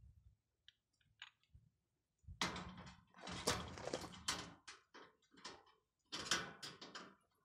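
Sheet-metal panels of a roll-out chicken nesting box scraping and rattling as they are fitted together by hand. A few faint clicks come first, then a long bout of metallic clatter about two seconds in and a shorter one near the end.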